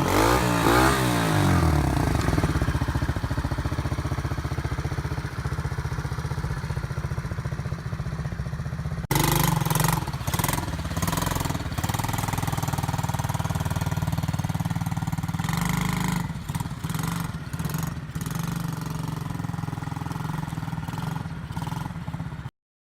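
The 125 cc engine of a YD 008/8 Premium quad (ATV) is blipped up and down in the first second or so, then settles into a steady idle. About halfway through the sound jumps abruptly and carries on idling with repeated short clicks over it, then cuts off just before the end.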